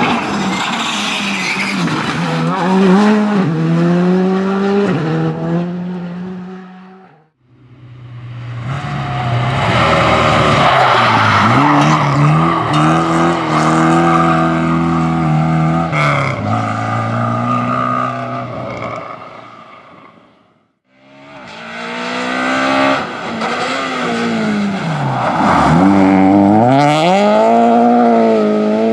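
Rally cars driven flat out in three separate passes, one after another: a Škoda Fabia Rally2, then a red older rally car, then a Peugeot 208. Each engine revs up and drops back over and over through the gear changes. The first two fade away before the next begins.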